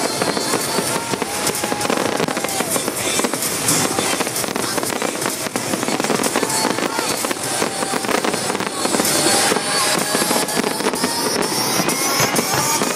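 Pyrotechnic fireworks crackling and popping in quick succession over loud crowd noise with shouting voices.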